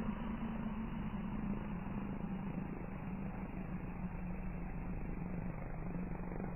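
Steady helicopter drone with a fast, even flutter and a low hum, unchanging throughout.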